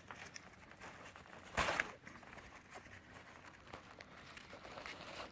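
Rucksack straps being handled and pulled through their fittings: faint rustling and scraping, with one louder scrape about a second and a half in.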